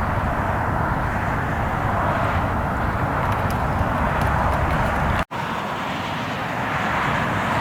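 Steady outdoor rushing noise with a strong low rumble, swelling slowly; the sound drops out for an instant about five seconds in.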